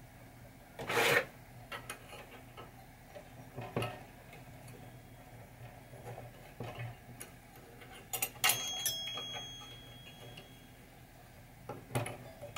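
Small chime-box parts handled on a workbench: scattered light clicks and taps of metal and plastic pieces, the loudest about a second in. About eight and a half seconds in, a metal clink leaves a thin, high ring that fades over about two seconds.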